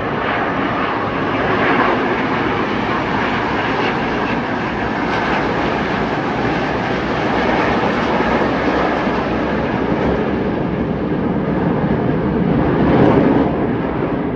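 Jet aircraft flying past: a loud, steady rushing roar that swells briefly near the end.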